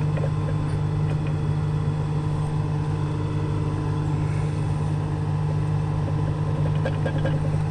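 Swather's diesel engine idling steadily: a constant low hum.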